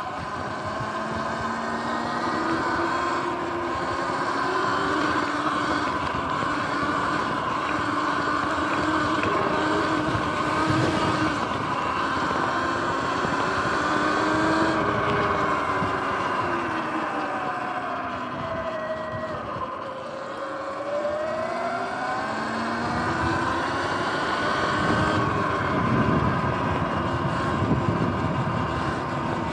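Sur-Ron electric dirt bike's drivetrain whining while riding, over wind and tyre noise. The pitch rises and falls with speed, dropping about twenty seconds in and then climbing again.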